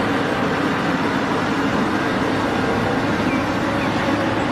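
Diesel engine of a Caterpillar 6015B hydraulic mining excavator running steadily with a low drone as it loads a dump truck.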